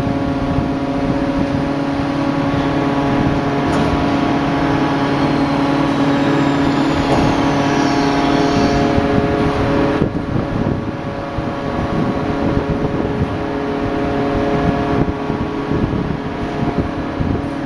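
Bar forging machine running with a steady mechanical hum. The sound changes abruptly about ten seconds in.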